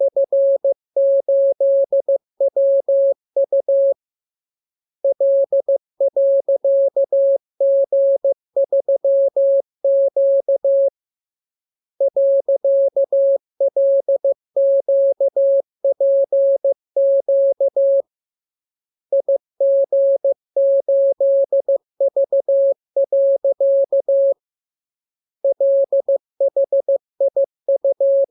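Morse code practice tone at one steady pitch, keyed in quick dots and dashes, sent in groups of characters separated by pauses of about a second: a training radiogram for receiving by ear.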